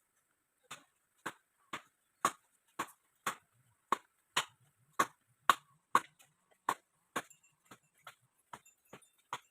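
A steady run of sharp knocks, about two a second, starting just under a second in and growing fainter over the last two seconds.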